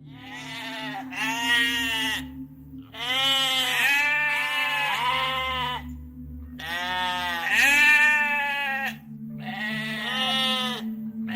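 Sheep or goats bleating: a series of long, wavering bleats in several bouts with short pauses between them.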